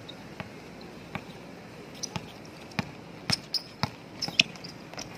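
A basketball being dribbled on a hard outdoor court: sharp, irregular bounces, sparse at first, then coming faster from about two seconds in.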